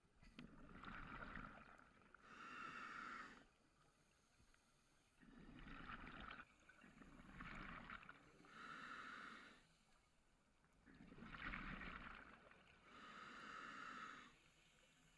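Scuba diver breathing through a regulator underwater: rushes of regulator hiss and exhaled bubbles, repeating every couple of seconds, about seven in all.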